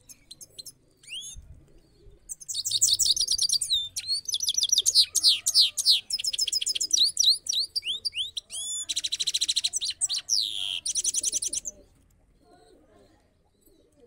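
European goldfinch singing: a few short calls, then a long twittering song of rapid trills and quick high notes with a buzzy stretch near the end, stopping about two seconds before the end.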